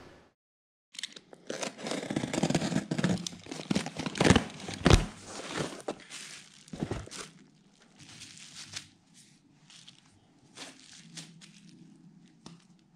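Plastic bubble wrap and packaging crinkling and rustling as items are lifted out of a cardboard box and unwrapped. It starts about a second in, is loudest and densest for the next few seconds, then settles into quieter, scattered rustles and small clicks as a plastic wrapping is opened.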